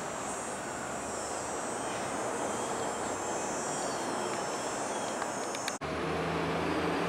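TTC T-1 subway train running away along the track, a steady rumble of wheels and motors. Near the end the sound drops out for a moment and a steady low hum with a few even tones takes over.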